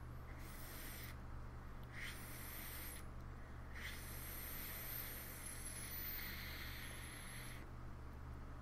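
Faint airy hiss of a drag on a Tugboat rebuildable dripping atomizer (RDA) on a vape mod, air drawn through the atomizer. It comes in three pulls: a short one, another about two seconds in, and a long one from about four seconds in that stops near the end.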